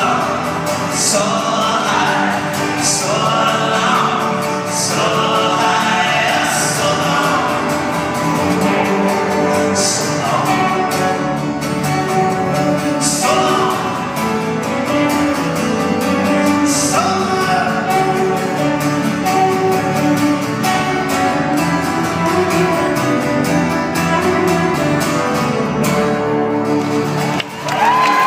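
Live acoustic trio playing: strummed acoustic guitars and an upright bass, with a man singing, heard from the audience of a reverberant concert hall.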